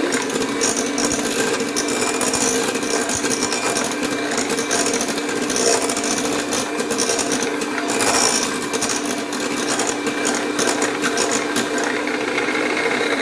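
Electric mixer running at a steady speed, beating a cream of yogurt, cream cheese, lemon and icing sugar in a bowl, with the beaters clattering against the bowl. It slows as it is switched off at the very end.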